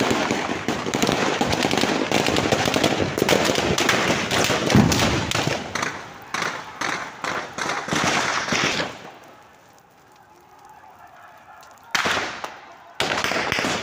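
Large vehicle fire crackling and popping in a dense rapid run, breaking into separate bursts about six seconds in. It drops to a quieter stretch before loud bursts return near the end.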